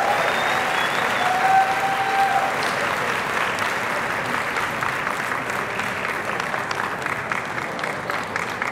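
Arena audience applauding steadily, the clapping slowly dying down. A cheer or call rises above it in the first couple of seconds.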